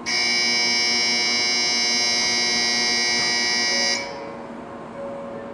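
Shinkansen platform departure bell: a steady electronic ringing that starts abruptly and cuts off after about four seconds, signalling that the train is about to depart.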